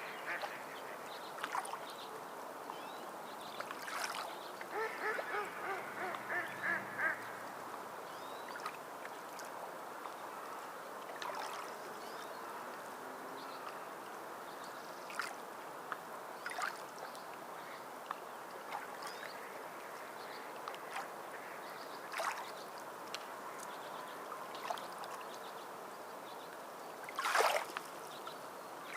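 Waterfowl calling over a steady background hiss of water: a run of quick repeated quacking calls about five seconds in, then scattered single calls, with the loudest short sound near the end.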